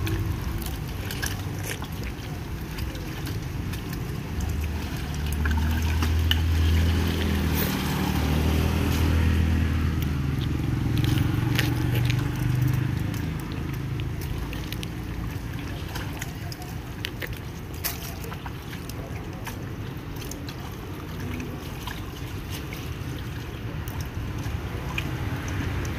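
Hands squelching and sloshing in wet mud and shallow water while fishing by hand in a drained ditch, with scattered knocks. A low rumble swells through the middle.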